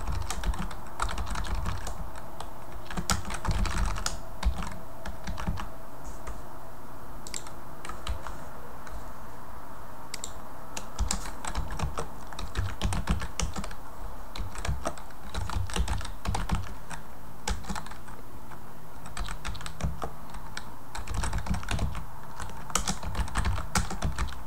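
Typing on a computer keyboard: quick runs of key clicks in irregular bursts with short pauses, over a steady low hum.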